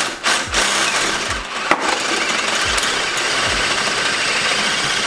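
Cordless drill on its high-speed setting, boring out a hole in a Miata rear knuckle from 9/16 to 5/8 inch. A couple of short bursts at the start, then a steady run.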